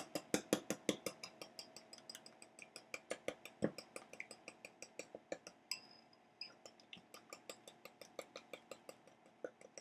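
Wire whisk beating a liquid cream-and-egg mixture in a bowl, clicking against the bowl's side about six or seven times a second.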